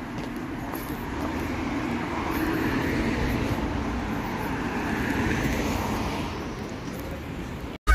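Road traffic on a city street, with a vehicle going past that swells and then fades over a few seconds; the sound cuts off suddenly at the very end.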